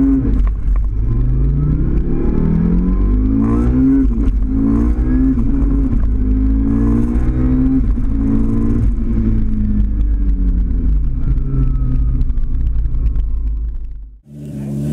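Audi five-cylinder race engine heard from inside the cabin under full acceleration, its pitch climbing and dropping back with each gear change several times, then falling away steadily as the car slows. The sound fades out abruptly near the end.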